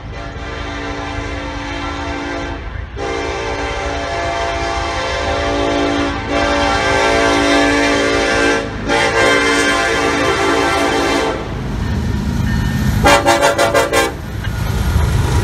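Diesel locomotive air horn sounding four long multi-note blasts with short breaks between them, then a brief fluttering blast, over the low rumble of the train, which grows louder near the end as it comes closer.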